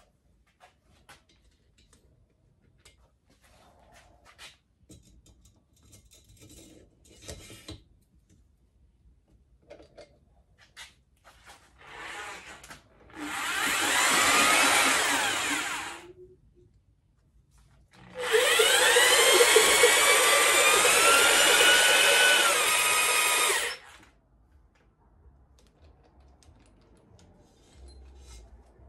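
Electric drill spinning a cylinder hone with 100-grit stones inside a Mercury 2.5 L outboard cylinder bore, honing out the bottom of the bore. It runs twice, about 3 s the first time and about 6 s the second, with a whine that climbs as the drill speeds up. Light clicks and knocks of handling come before and after.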